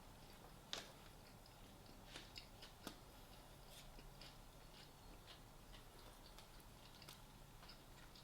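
Near silence with faint eating sounds: scattered small clicks and mouth noises of someone chewing food.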